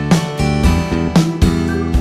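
Background music with strummed guitar and a steady rhythm.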